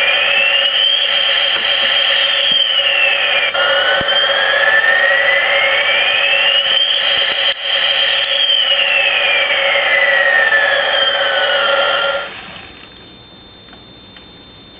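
Ride-on toy airplane's electronic sound effect played through its small speaker: a synthetic whine gliding slowly up and down over a steady hum, stopping suddenly about twelve seconds in.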